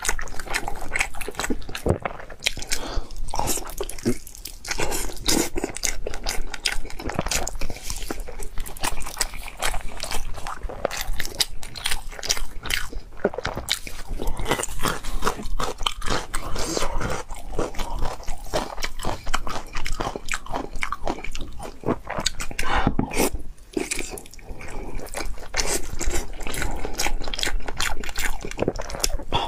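Close-miked eating: chewing and biting into braised pig intestine, heard as a dense, continuous run of small clicks and smacks.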